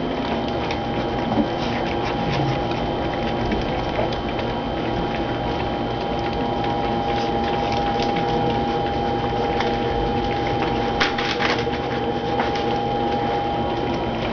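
Puppies lapping and licking food dishes clean: a steady patter of many small wet clicks and smacks, with a steady thin whine underneath.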